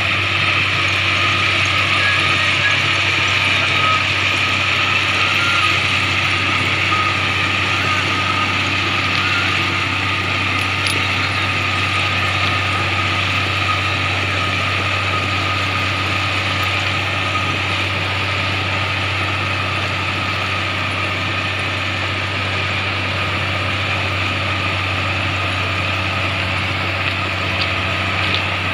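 Komatsu motor grader's diesel engine running steadily under load as the grader spreads crushed stone with its blade.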